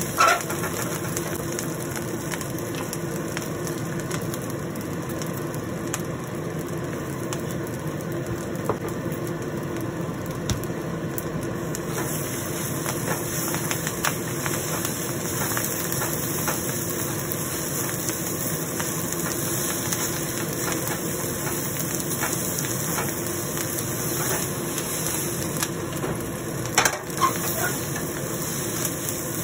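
Fried rice being stir-fried in a wok: a spatula scraping and turning the rice against the pan with a light sizzle over a steady hum. A few sharper knocks of the spatula on the wok come near the start and near the end.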